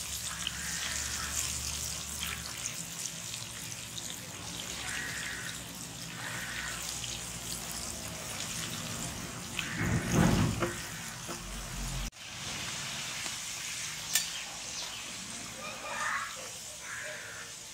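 Breaded chicken fingers deep-frying in a large kadai of hot oil: a steady sizzling hiss of bubbling oil. A brief low rumble comes about ten seconds in.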